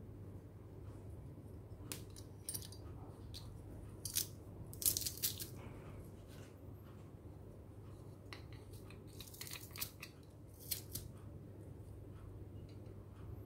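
Metal garlic press crushing garlic cloves: irregular sharp clicks and short squishy scrapes as the handles are squeezed, loudest a little before the middle and again later on, over a steady low hum.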